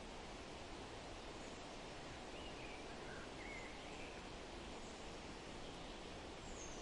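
Steady wind through a forest with a few faint, distant bird chirps and short trills about two to four seconds in.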